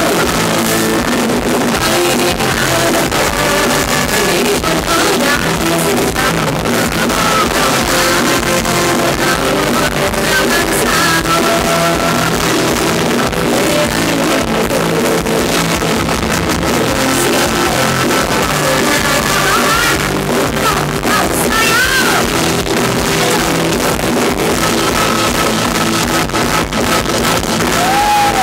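Live band playing loud, amplified Thai ramwong dance music through the stage PA, with electric guitar and singing into microphones.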